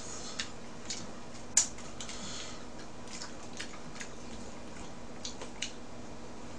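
Eating sounds at a table of raw mullet sashimi: scattered light clicks of chopsticks on dishes and wet smacks of chewing, with one sharper click about a second and a half in.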